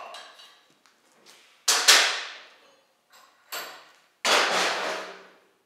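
Metal knocks and clanks as steel welding plates and tools are handled at a bench, each with a short ringing decay. There is a loud clank about two seconds in and a longer clatter about four seconds in.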